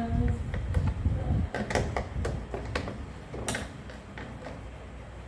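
Scattered sharp clicks and knocks of small plastic tools and parts being handled on a children's ride-on toy car, thickest about two to three seconds in and thinning out towards the end.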